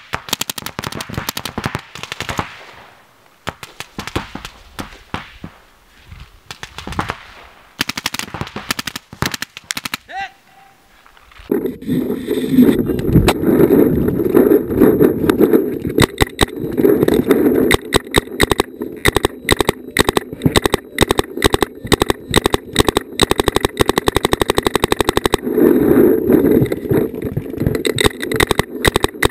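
Paintball markers firing rapid strings of shots, a fast popping. For the first ten seconds or so the shots are fainter, then from about twelve seconds in they are much louder and denser, fired right at the camera on the shooter's own marker.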